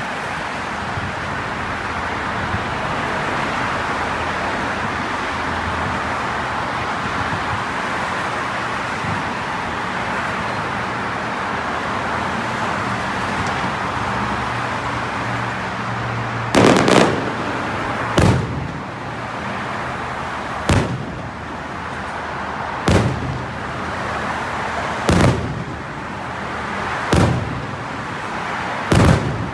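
Aerial firework shells bursting in sharp bangs about every two seconds, seven in all, beginning a little past halfway. Before them there is only a steady background din.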